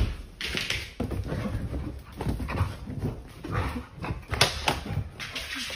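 A dog making short, irregular vocal noises while play-fighting with a cat, mixed with scuffling.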